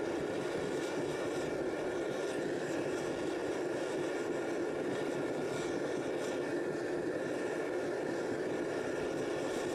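A steady mechanical drone with a constant hum, unchanging throughout.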